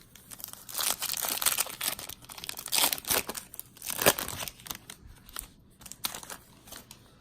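Plastic wrapper of a trading-card pack being torn open and crinkled: irregular crackling and tearing bursts, densest in the first four seconds, then thinning to scattered rustles.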